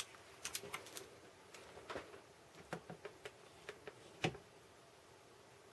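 Faint clicks and taps from handling a clamp meter and its test wires as the meter's jaws are closed around a current-carrying wire, a handful of separate clicks with the sharpest about four seconds in.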